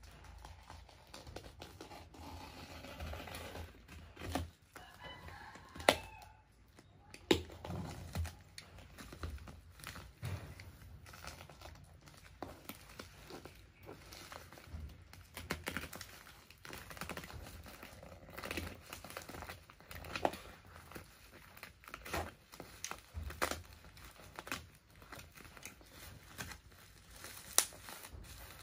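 Box cutter slicing along a plastic bubble-wrap mailer, with the plastic crinkling and crackling. Scattered sharp clicks and taps run through it, the loudest about six seconds in and near the end.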